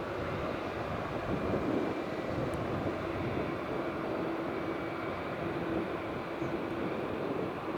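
Airbus A330-200's twin jet engines at takeoff thrust: a steady roar with a held low tone through it.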